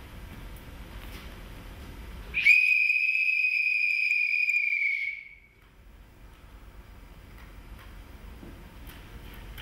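A single high, steady whistle tone held for about three seconds, its pitch sagging slightly as it fades out.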